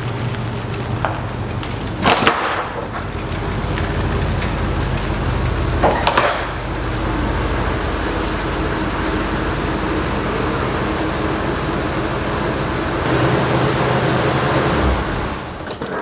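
1980 Cadillac's 368 (6.0 L) V8 running steadily as the car is driven, on a freshly replaced timing chain and gears. Two short sharp knocks about two and six seconds in, and the sound falls away near the end.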